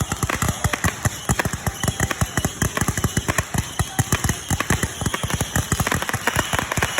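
Fireworks and firecrackers going off in a dense, continuous barrage, many sharp bangs and pops a second overlapping one another.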